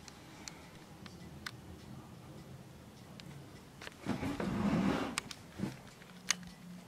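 Light scattered ticks of raindrops striking a window pane. About four seconds in comes a louder rustle of the camera being handled and swung round, then a couple of sharp clicks.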